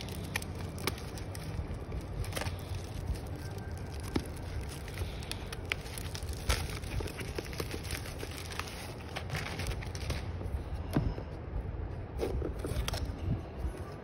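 Clear plastic wrap and packing tape being peeled and pulled off a small cardboard box, crinkling and crackling with many short, sharp clicks.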